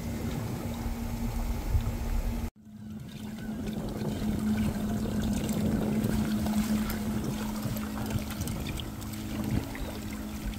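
Seawater pouring and trickling into a cooler live well from the circulation inlet fed by a bilge pump, over a steady motor hum. The sound breaks off for an instant about two and a half seconds in.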